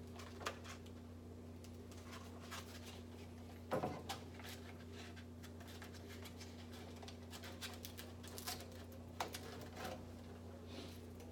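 Faint clicks and rustles of a folded quarter sheet of sandpaper being pushed and clamped into a quarter-sheet hand sander, with one louder knock about four seconds in, over a steady low hum.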